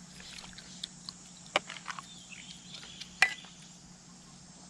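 Eating sounds from a bowl of noodle soup: small ticks and soft mouth sounds, with two sharp clicks of utensils on the bowl about one and a half and three seconds in.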